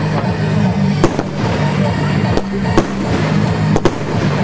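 Royal Fireworks 'Magicans' 20-shot firework cake firing: three sharp reports, one to two seconds apart.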